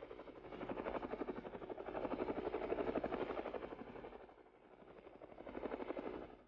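Light helicopter landing, its main rotor's rapid blade chop loudest in the middle, easing off, swelling once more and then cutting off abruptly near the end.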